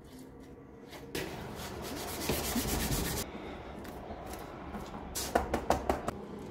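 Gritty scraping and rubbing of a thick cement-and-perlite mix being worked into place by hand, followed near the end by a quick run of about six light taps.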